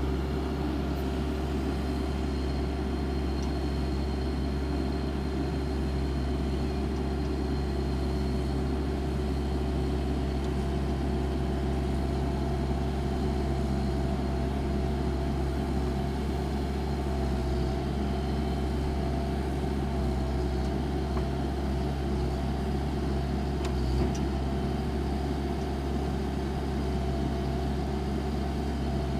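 Diesel engine of heavy equipment running at a steady speed, an even hum with no revving. A single light knock sounds once, late on.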